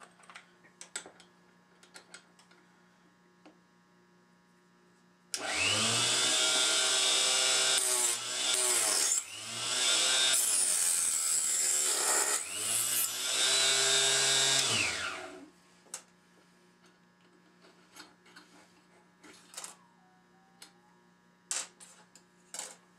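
Small electric cutoff saw switched on about five seconds in and run for about ten seconds. Its motor pitch sags and recovers three times as the blade is brought down through a brass cartridge case held in a jig, then it winds down when switched off. Light handling clicks come before and after, over a steady mains hum.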